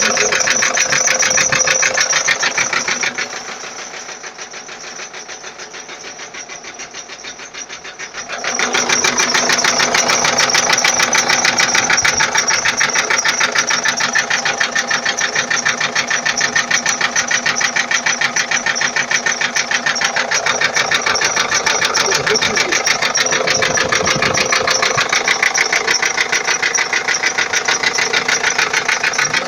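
Ford Transit 2.4 TDI diesel engine running with a fast, even knock that the owner cannot identify. The sound drops in level for about five seconds from about three seconds in, then comes back.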